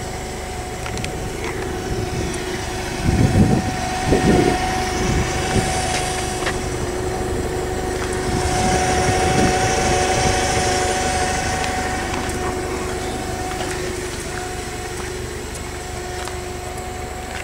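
A steady machine hum with two held tones, with a few low thumps about three to four seconds in and a swell of hiss around the middle.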